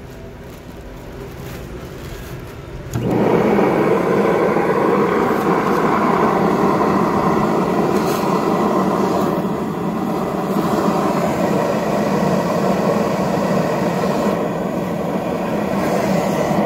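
Carpet extractor's vacuum motor switches on about three seconds in and runs steadily.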